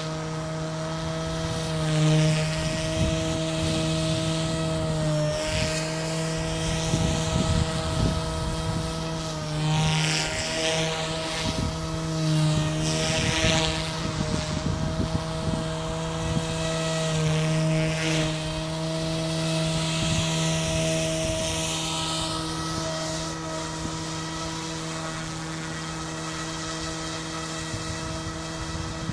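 Electric RC helicopter (SAB Goblin Fireball) in flight: the steady whine of its main rotor and motor, with a swish that rises and falls every few seconds as it passes back and forth.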